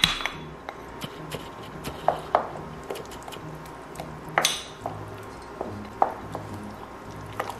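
Wooden spoon stirring thick corn fritter batter in a stainless steel bowl. Scattered light knocks and scrapes of the spoon against the bowl, the loudest about four and a half seconds in.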